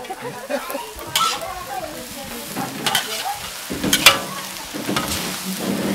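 Noodles stir-frying in a steel wok: a steady sizzle as they are tossed, with metal utensils scraping and clanking against the wok three times, the loudest clank about four seconds in.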